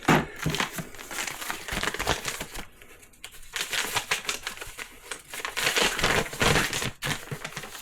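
Packaging being handled by hand: paper and plastic crinkling and rustling with many small clicks and taps, easing off briefly about three seconds in.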